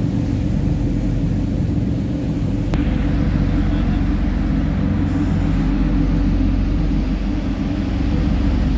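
Steady low rumble on a moving ferry's open deck: wind buffeting the microphone mixed with the ship's engines, with a faint steady hum.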